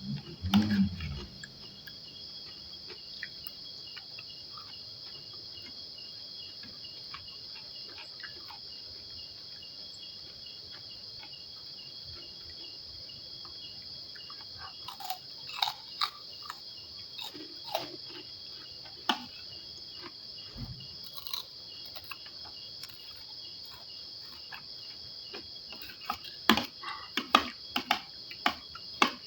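Crickets trilling steadily, a high even buzz with a regular pulsing chirp beneath it. Scattered sharp clicks of eating come over it, in clusters about halfway through and near the end.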